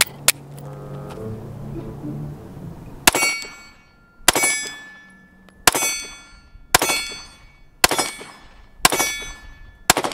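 Seven pistol shots about a second apart from a stock Glock 43X 9mm, each followed by a ringing metallic tail. The string fires without a stoppage: the PSA magazine, which had been failing to feed, runs through.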